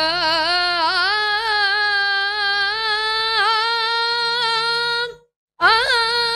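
Slow kirtan melody in one held line with vibrato and sliding note starts, from a girl singing with a bowed, fretted string instrument. The phrase stops about five seconds in, and a new phrase begins half a second later.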